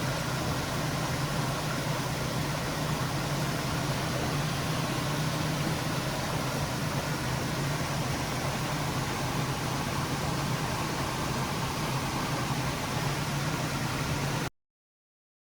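Steady rain falling, an even hiss with a low rumble beneath it, which cuts off suddenly near the end.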